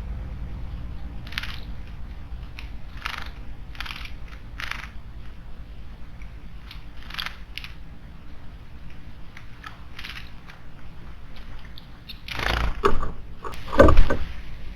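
Short wild bird calls repeated at irregular intervals over a steady low background rumble, with two loud bursts of noise close together near the end.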